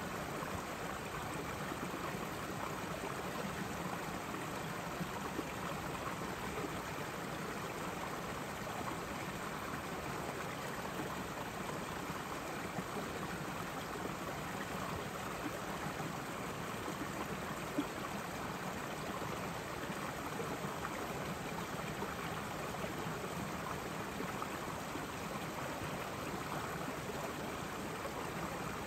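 Small meltwater stream flowing steadily under and around a thin crust of ice and snow, an even running trickle.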